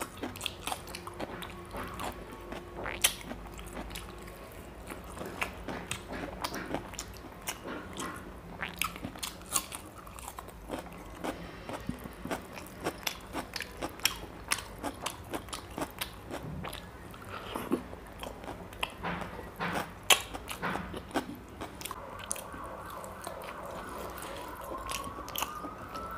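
Close-miked mukbang eating sounds: a man chewing mouthfuls of chicken curry and rice with his mouth open, giving many sharp, irregular wet clicks and smacks.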